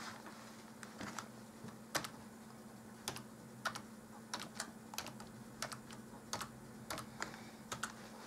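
Computer keyboard keys pressed one at a time as a password is typed in: about fifteen separate, unevenly spaced clicks, over a faint steady hum.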